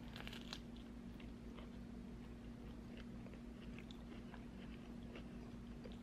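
A bite into a flaky homemade cream cheese danish, a short burst of crisp crackling in the first half-second, followed by soft chewing with scattered small mouth clicks. A steady low hum runs underneath.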